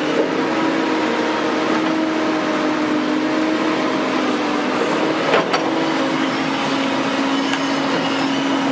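Hydraulic excavator's diesel engine running under load as it digs, a steady droning hum that shifts a little in pitch, with a couple of sharp knocks about five seconds in.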